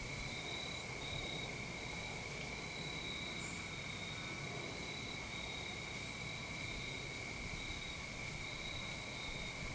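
Steady insect chorus of cricket-like trilling: one continuous high trill, with a second, higher trill that breaks off and resumes every second or so, over a low rumble.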